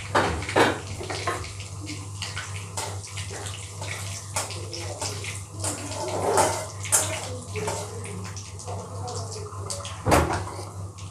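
Asafoetida, cumin and fennel seeds sizzling and crackling in hot oil in a metal kadhai as they are stirred with a wooden spoon: whole spices being tempered. A few louder clatters come right at the start and again about ten seconds in.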